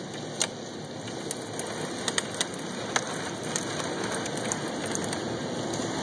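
Steady rush of a heavy, wind-driven downpour, with sharp ticks of hailstones striking hard surfaces scattered throughout, several close together about two seconds in.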